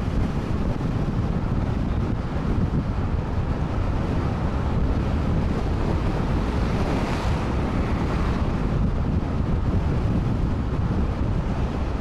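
Wind buffeting the microphone of a camera mounted on the bonnet of a moving car: a steady, low rumbling noise with road noise under it. A hiss swells briefly a little past the middle.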